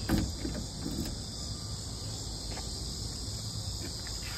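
Steady, high-pitched chirring of insects, with one short click at the very start.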